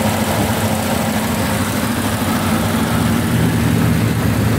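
1969 Triumph TR6's straight-six engine idling steadily.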